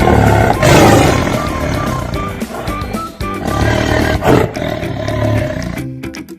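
Background music with a large animal roaring over it, loudest about a second in and again around four seconds in; the music changes to a lighter plucked tune near the end.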